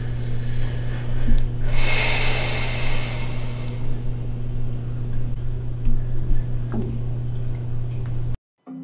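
Steady low electrical hum with a breathy hiss swelling about two seconds in and fading a second or so later, and a few faint clicks; the sound cuts off abruptly near the end.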